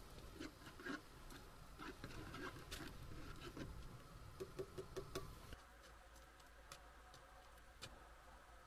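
Faint scattered clicks and light taps, with a quick run of about five taps near the middle, then the background drops to quiet room tone about two-thirds of the way through.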